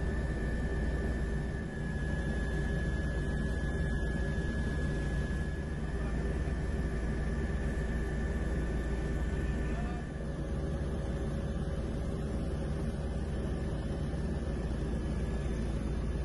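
Steady aircraft engine noise heard from on board: a deep even rumble with a high whine over it.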